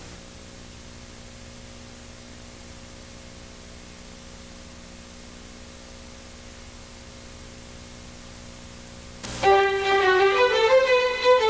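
Steady low hum and hiss for most of the stretch. About nine seconds in, music starts suddenly with a violin playing a melody over a moving accompaniment.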